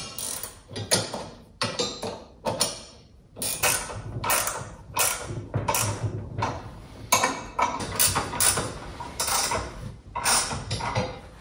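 Clamps on a steel Alaskan chainsaw mill being tightened onto the chainsaw bar: a run of short metallic ratcheting and rattling strokes, about two a second.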